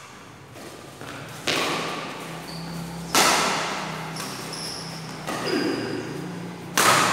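Badminton rackets striking a shuttlecock in a rally: four sharp hits, about one every one and a half to two seconds, each ringing on in the echo of a large hall.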